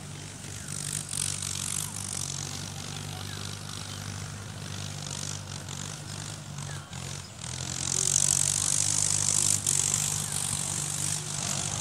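A steady low engine hum, with a hiss over it that grows louder about eight seconds in.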